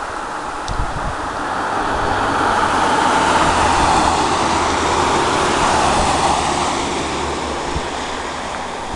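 A car driving past on a road: tyre and engine noise swelling to its loudest about midway, then fading away.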